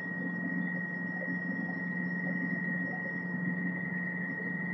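Subway car standing in a station with its doors open: its equipment gives a steady high-pitched whine over a low hum and an even rush of air noise.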